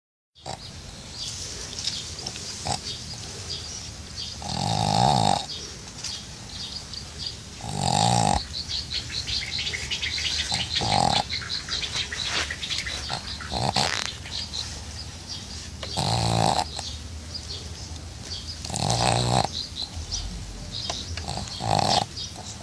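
A pug snoring: rattling, fluttering snores about every three seconds, with quieter raspy breathing between them.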